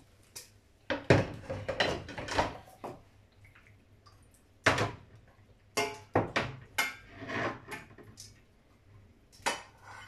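Kitchenware clattering: dishes and utensils knocked together and set down in several spells of clicks and knocks, the busiest about a second in.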